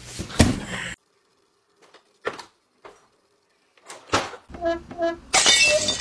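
A loud crash about half a second in, then near quiet broken by a few short knocks and thuds.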